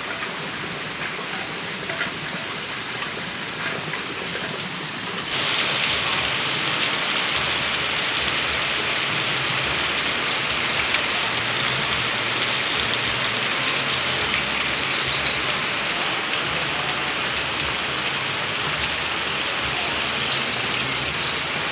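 Heavy rain falling steadily, a dense even hiss that gets suddenly louder about five seconds in.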